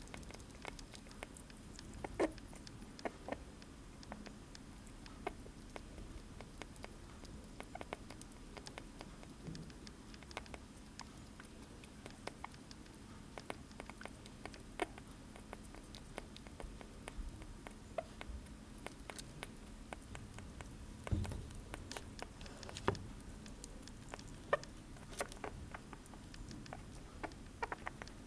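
Sugar glider eating blueberries: a long run of small, irregular wet clicks and smacks of its chewing, a few of them louder than the rest.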